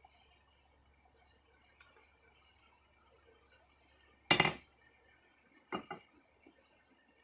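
Metal clanking: one loud ringing clank about four seconds in, then two lighter clanks in quick succession, as of steel stock or tools being handled in a blacksmith's shop.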